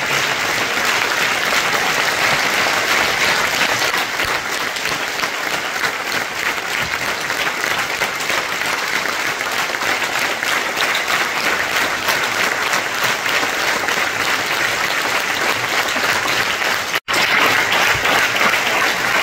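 Theatre audience applauding steadily, a dense mass of many people clapping; the sound cuts out for an instant near the end, then resumes.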